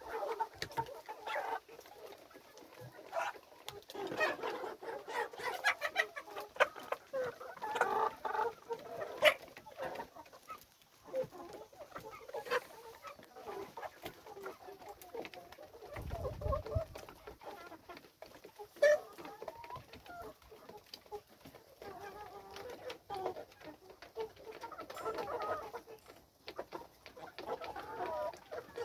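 A flock of kienyeji chickens clucking, many birds calling over one another without pause, with scattered sharp clicks among the calls.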